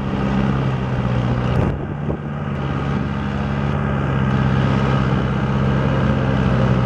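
A John Deere farm tractor's diesel engine labouring under heavy load as it drags a tractor-pull sled, giving a loud, steady drone at an even pitch. A brief knock comes a little under two seconds in.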